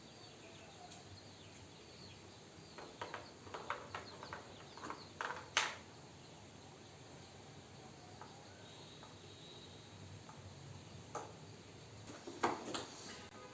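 Scattered light clicks and knocks of a plastic helmet chin-clamp camera mount being handled and fitted onto a helmet, in two clusters with the loudest knock about five and a half seconds in, over a faint steady hiss.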